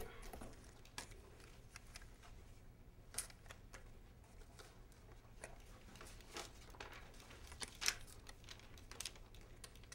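Faint, scattered rustles and soft clicks of paper and card pieces being handled.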